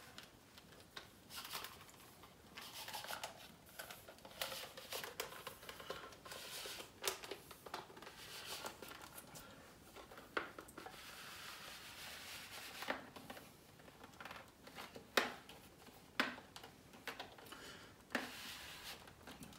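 Plastic cable-trunking cover being slid up the wall and pressed into place over the cables: faint scraping and rubbing, with scattered clicks and knocks.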